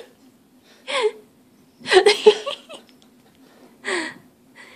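A person laughing in three short bursts of giggling, the middle one a run of quick chuckles.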